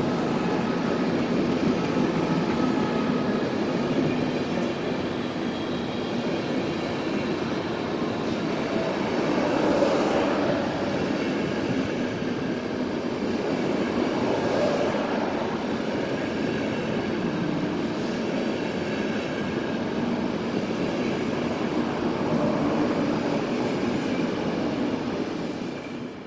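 Passenger coaches of a locomotive-hauled train rolling past along a platform: a steady rumble of wheels on rail, with faint high squealing tones and two brief louder swells. The sound drops away abruptly at the very end.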